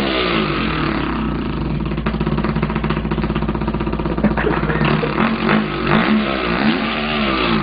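A man imitating a dirt bike engine with his mouth: a continuous buzzing drone that holds a steady pitch, then swoops up and down as if revving, from about five seconds in until it stops at the end.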